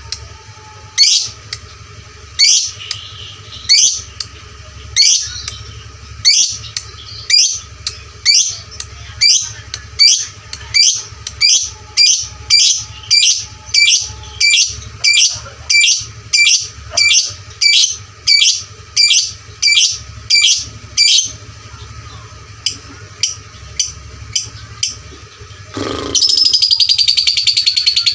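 Fighter lovebird calling in short, sharp, high chirps repeated over and over, at first about once a second, then faster at about two a second. Near the end it breaks into a loud, rapid, unbroken chattering trill, the 'ngekek' chatter that follows the ticking calls.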